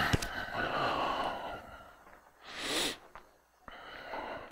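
A person's drawn-out vocal sound, falling in pitch, followed by a short sharp breath about two and a half seconds in.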